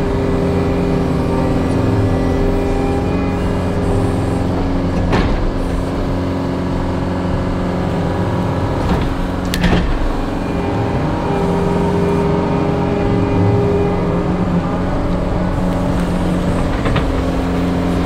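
John Deere 333G compact track loader's diesel engine running steadily while working, with a few sharp knocks or cracks about five, nine and a half, and seventeen seconds in.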